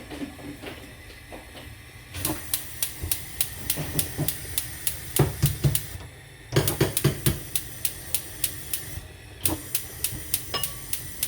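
Brandt gas stove's electric spark igniter clicking steadily, about four clicks a second, in three runs broken by short pauses, with knocks from the burner knob being pushed and turned. The burner does not catch, which the owner takes for a faulty safety valve.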